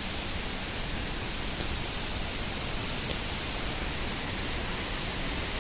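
Fast-flowing water rushing in a steady, even wash of noise.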